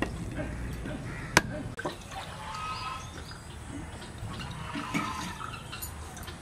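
Coconut water trickling from a freshly opened coconut as it is poured into a drinker's mouth, with a single sharp knock about a second and a half in.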